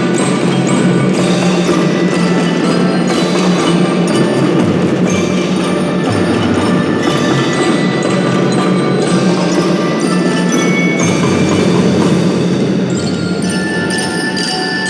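Drum band playing: a ringing bell-like melody on glockenspiel-type mallet percussion over steady drumming and clicking percussion.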